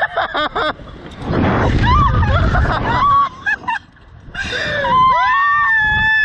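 Riders screaming and shrieking on a Slingshot reverse-bungee ride, in short high cries, with wind rushing over the microphone for a couple of seconds. A long, high, held scream starts about five seconds in.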